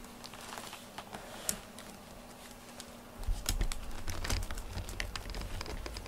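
Light clicks and taps of a cat moving about on a bamboo-slat floor, growing busier about three seconds in, when a low handling rumble comes in as well.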